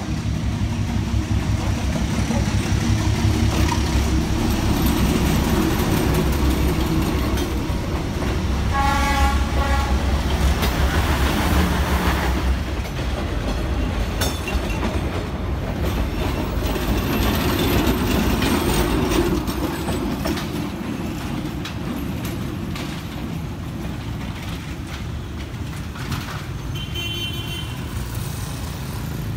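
Motor traffic running steadily with horns beeping, one horn about nine seconds in and a short, higher beep near the end.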